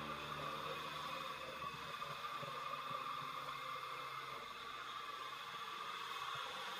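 Faint steady hiss in a lull of the background music, with the last of the music fading out at the start.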